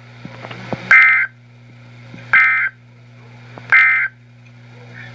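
Emergency Alert System digital data tone sounding three times, each a short buzzy warble about a second and a half apart: the end-of-message code that closes the tornado warning. A steady low hum runs underneath.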